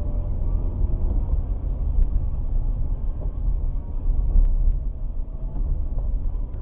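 Steady low rumble of a car's engine and tyres on the road while driving, heard from inside the moving car through a dash camera's microphone.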